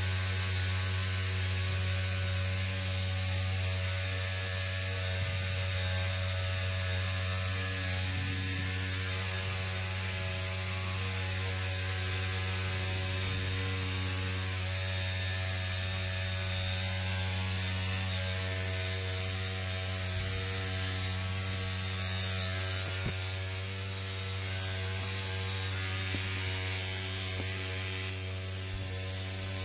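HVAC equipment running with a loud, steady electrical hum and a stack of buzzing overtones that never changes, the noise the service call is about. A single faint click about 23 seconds in.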